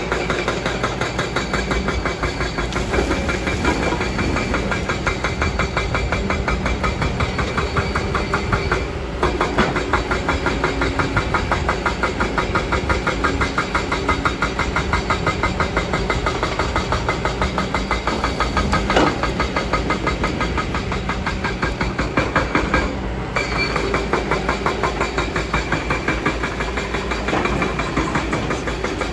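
Kobelco hydraulic excavator's diesel engine running steadily with a fast, even pulse. There are two short dips in level, and a single sharp knock about two-thirds of the way through.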